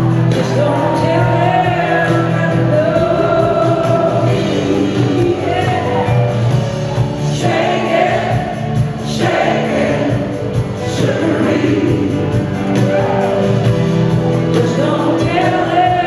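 Live blues-rock band playing: a woman singing lead into the microphone over electric guitar and a full band in a large hall, steady and loud.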